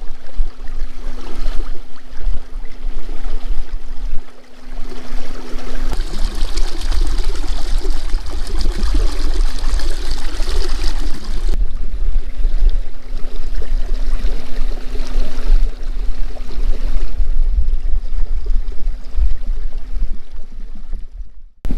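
Lake water lapping, with wind buffeting the microphone: a steady rushing noise over a heavy low rumble, with a faint steady hum under much of it. It cuts out briefly near the end.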